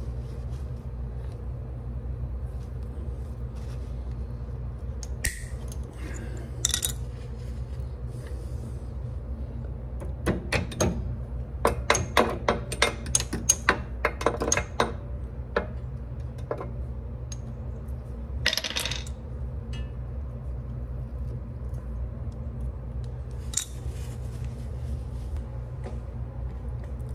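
Ratchet wrench clicking in a quick run of strokes for a few seconds about halfway through, tightening the nut on a Corvette rear leaf spring link bolt, with a few separate metallic clinks before and after. A steady low hum lies under it.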